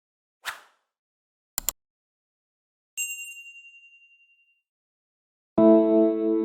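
A short sequence of intro sound effects: a brief soft whoosh, a quick double click, then a single bright ding that rings out for about a second and a half. Near the end a sustained synthesized music chord comes in.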